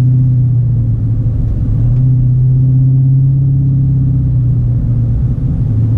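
2017 Dodge Challenger Hellcat's supercharged 6.2-litre V8 running at a steady low drone as the car cruises, with low road rumble underneath.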